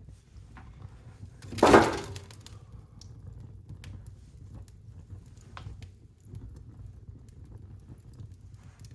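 Wood fire burning in a fireplace: a low steady rumble with scattered sharp crackles and pops, and one much louder crackling burst about a second and a half in.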